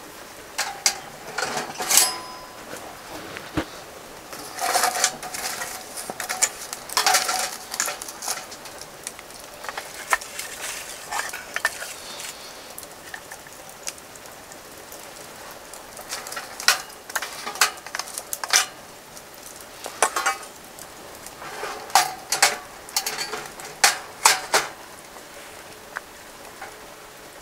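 Clanks and knocks from a tent-Mark Wood Stove M being fed: its metal door and latch opening and shutting, and split firewood knocking against the firebox as a log is pushed in. The sharp metallic knocks come in clusters, several short runs of them.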